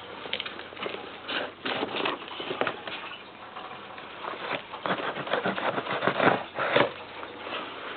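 Cardboard shipping box being worked open by hand: irregular scraping, crackling and tearing of cardboard and tape, with a few louder rips.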